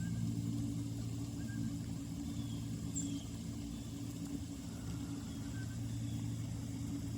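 A motor running steadily, a low even hum, with a few faint short high chirps over it.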